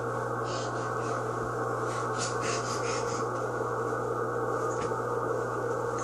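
Soft, scattered rustling of fabric and a plush toy as a toddler moves about, over a steady low hum and hiss that does not change.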